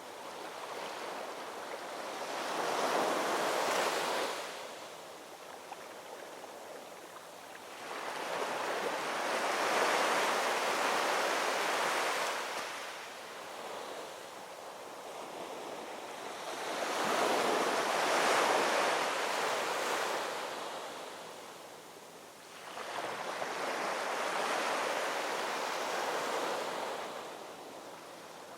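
Ocean waves rolling in and breaking on the shore: four surges of surf, each swelling up and washing away over a few seconds.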